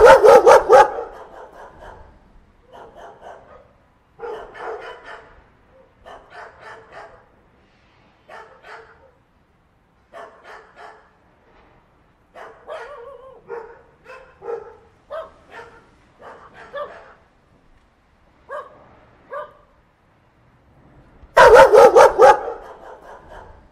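A dog barking over and over at a reared, hooded cobra. There is a loud burst of barks at the start and another near the end, with quieter runs of shorter barks between.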